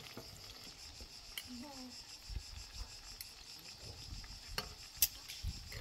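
Metal tongs clinking a few times against a pan and plate while fried eggplant slices are lifted out, the sharpest clink near the end, over a steady high chirring of insects.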